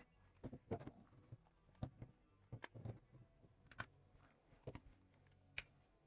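Faint, irregular plastic clicks as a TV remote's plastic case is prised apart by hand along its seam, the side clips unhooking one by one. About a dozen small clicks, the sharpest near the middle and shortly before the end.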